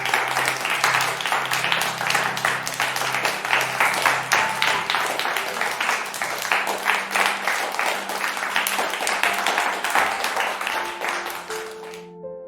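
A crowd applauding over soft keyboard background music. The clapping starts suddenly and cuts off sharply near the end, leaving the music alone.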